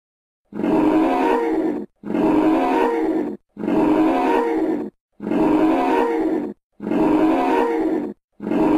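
Dinosaur call sound effect voicing an Edmontosaurus: the same roar, about a second and a half long, played six times in a row with short gaps between.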